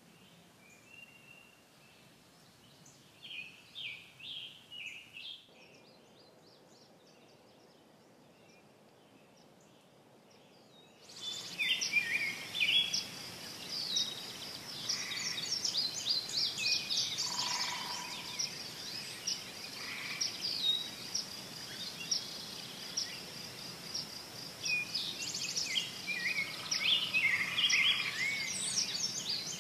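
Outdoor ambience of songbirds chirping and singing, faint at first. About eleven seconds in it turns suddenly louder into a busy chorus of overlapping chirps over a steady high-pitched whine.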